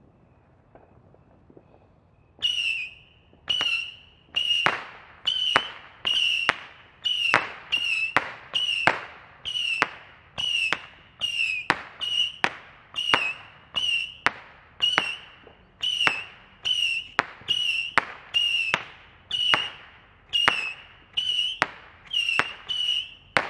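A firework going off in a long regular string of whistling pops, roughly one a second and starting about two seconds in: each pop is a sharp crack with a short, high whistle that dips slightly in pitch.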